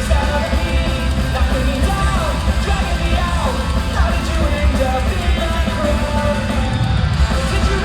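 Live pop-punk band playing loud, as heard from the crowd in an arena: heavy bass and drums under electric guitars, with voices singing or yelling over the top.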